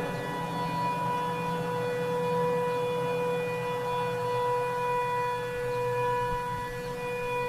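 Sentry 7V8-B outdoor tornado warning siren sounding its steady Alert signal. It holds one unchanging pitch that swells and fades gently in loudness.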